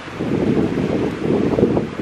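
Wind buffeting the camera microphone, a steady low rumble, over the rush of flowing river water.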